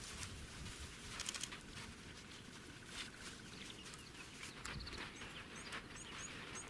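Faint, quiet bush ambience as a herd of African elephants walks past on sand: only soft scuffs and rustles of their steps and the brush are heard. A small bird chirps a run of short, high notes near the end.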